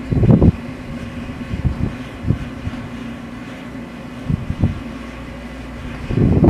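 Steady mechanical hum of the CSO telescope dome's drive machinery during closing, with low buffeting of wind on the microphone about half a second in and again near the end.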